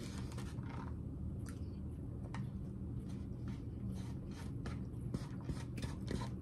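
A person chewing a mouthful of food close to the microphone: a scattering of soft clicks and smacks from the mouth. A steady low hum runs underneath.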